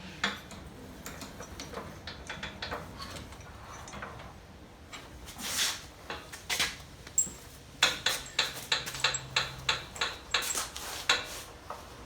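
Hand tools and metal hardware clicking and clinking while bolts and spacers are fitted to the shock mount of a Polaris Ace 570 UTV's suspension. Scattered clinks at first, then a run of sharp clicks, about three a second, through the second half.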